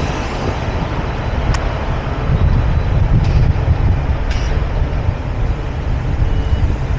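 Semi truck's diesel engine running with a steady low rumble, with a few short clicks. Near the end a reversing alarm starts beeping at an even pace.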